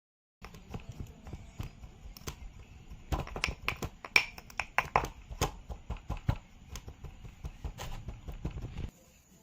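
Kinetic sand being worked by hand: an irregular run of soft crackles and sharp little clicks, thickest in the middle, that stops abruptly near the end.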